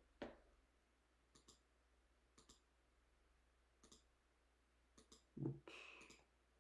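Faint computer mouse clicks, mostly in quick double clicks about once a second, with one louder short low thump about five and a half seconds in.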